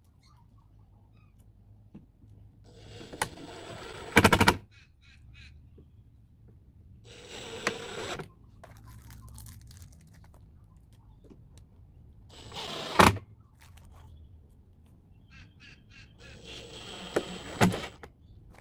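Power drill driving wood screws in four separate bursts. Each burst builds up over a second or so and ends in a sharp, loud crack as the screw goes home.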